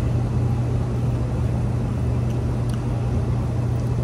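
A steady low hum, with a few faint light clicks in the second half.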